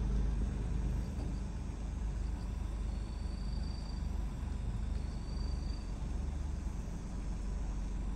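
Steady low rumble of a stopped car's engine idling, heard from inside the cabin. Two faint, high, drawn-out tones of about a second each come about three and five seconds in.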